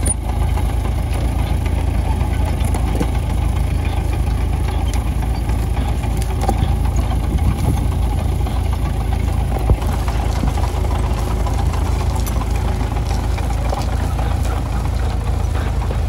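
International crawler tractor's diesel engine running steadily while pulling a trailed plough through the ground, with one brief knock about ten seconds in.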